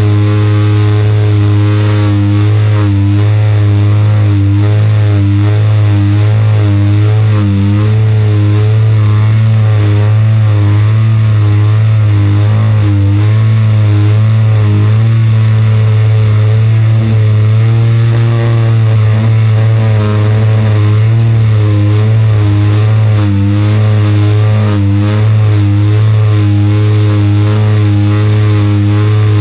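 Single-cylinder two-stroke petrol model-aircraft engine (AGM 30cc) running at steady cruise throttle, heard from an onboard camera, with its upper tones wavering in pitch. The engine note shifts briefly about 18 seconds in as the plane manoeuvres.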